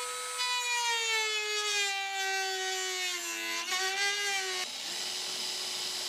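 Hand-held rotary tool cutting into a microwave oven's plastic front bezel: a high motor whine that sags slowly in pitch as the tool bites in, wavers, and stops about four and a half seconds in, leaving a fainter steady whine.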